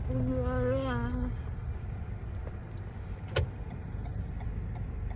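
Steady low rumble of a car riding along, heard from inside. In the first second a person makes one long, wavering vocal sound, and a single sharp click comes about three and a half seconds in.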